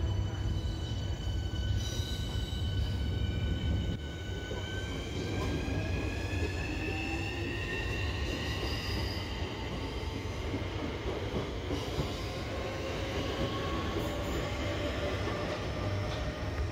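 Southeastern electric train pulling out of the platform: a low rumble of wheels on rail under a whine of several tones that slowly rises in pitch as it gathers speed.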